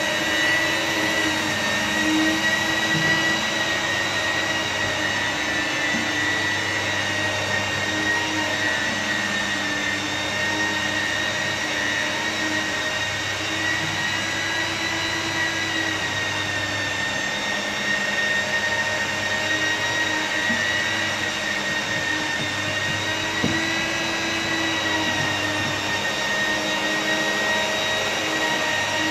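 Electric glass polisher running steadily, a high motor whine whose pitch wavers slightly as it works the glass.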